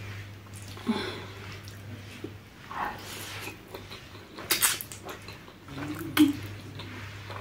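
Slurping and chewing spicy ramen noodles: short wet mouth sounds every second or two, the loudest a slurp about four and a half seconds in. A faint steady low hum underneath.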